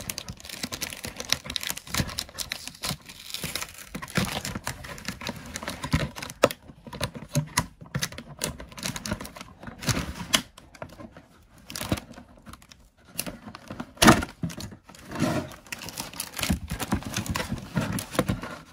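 Plastic packaging crinkling and cardboard inserts scraping and tapping as a doll's packaging is worked out of a cardboard box, in irregular clicks and rustles. A sharper knock about 14 seconds in is the loudest sound.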